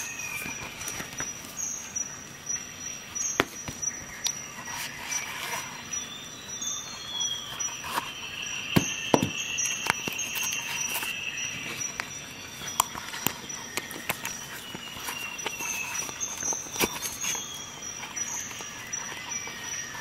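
Clicks and light knocks of a metal multi-tool being handled and pushed into a nylon pouch. Behind them are a steady high whine and faint high gliding calls.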